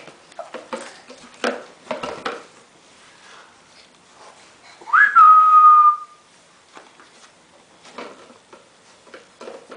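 A short whistle about halfway through: a quick upward swoop, then one held note for about a second that sinks slightly. There are a few soft knocks of toys being handled in the first couple of seconds.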